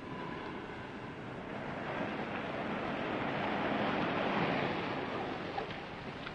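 A car driving and pulling up: an even noise of engine and tyres that swells to its loudest about four seconds in, then dies down.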